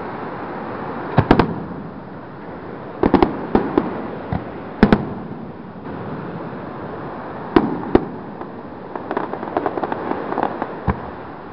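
Aerial fireworks shells bursting, a series of sharp booms a second or two apart, then a run of quicker, smaller crackling pops near the end.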